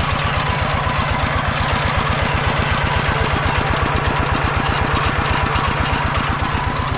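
Farm tractor engine running steadily with a rapid, even chugging, driving a water pump that moves water between paddy pools.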